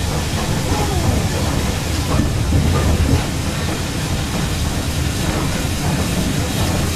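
Railway coach rumbling along the track, heard from inside the carriage through an open window, its wheels clicking over rail joints and pointwork as the train runs into a station.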